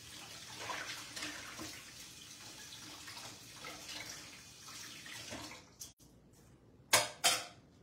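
Kitchen sink tap running as hands are washed under it, the water stopping about five and a half seconds in. Two short, loud noises follow near the end.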